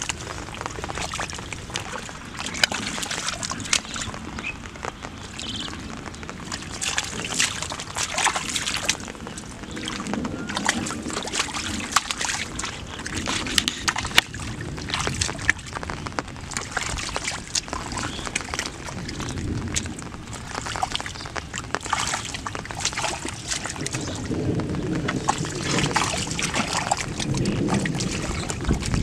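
Shallow muddy water sloshing and splashing as hands and bare feet churn through the mud, in many short, irregular splashes.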